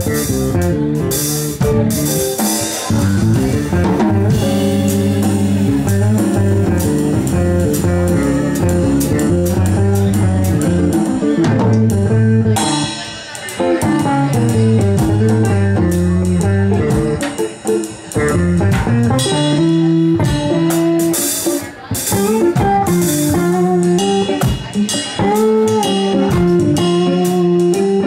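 A live jazz trio plays: electric bass guitar, electric guitar, and a drum kit whose cymbals are struck throughout. The bass lines sit prominently low in the mix.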